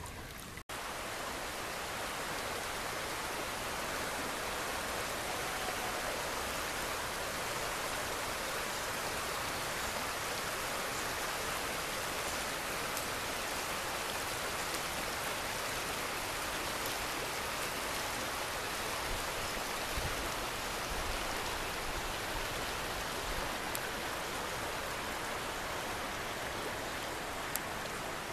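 River water running over a shallow riffle: a steady rushing, splashing hiss.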